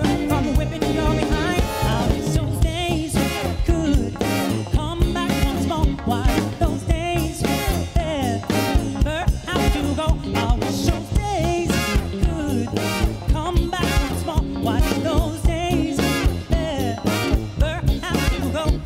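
Male singer with a live band playing an upbeat song with a steady drum beat.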